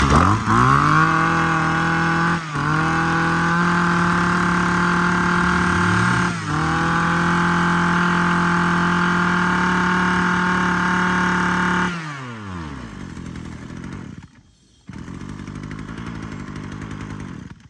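Mitsubishi TBE 27cc two-stroke brush cutter engine revved up and held at high, steady revs, dipping briefly twice. About twelve seconds in the revs fall away and it runs on quieter.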